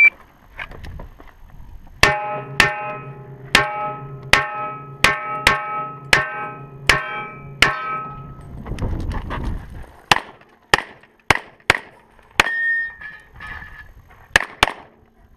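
Rapid semi-automatic pistol fire: a string of about nine shots fired through a steel barrel, which rings after each shot. After a short pause with shuffling, a second string of about eight quicker, drier shots follows.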